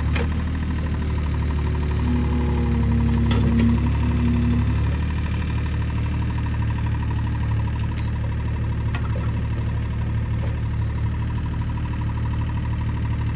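John Deere 27D mini excavator's diesel engine running steadily under hydraulic load as the bucket digs into the soil. A higher hydraulic whine holds for about two and a half seconds starting about two seconds in, and a few light knocks come as the bucket works.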